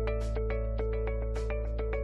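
Intro music in a news-broadcast style: quick, evenly repeated notes over a steady low drone, with a bright hissing accent about once a second.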